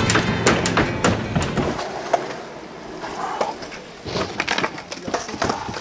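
A music track stops about two seconds in. After it come skateboard sounds on concrete: urethane wheels rolling and sharp clacks of the wooden deck hitting the ground, one loud clack just after the music stops and a quick run of them near the end as a flat-ground trick fails.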